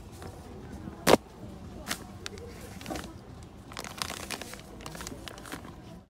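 Groceries being moved around in a wire shopping cart: plastic bottles and packets knock together and crinkle, with a sharp knock about a second in and a quick run of clatters around the four-second mark.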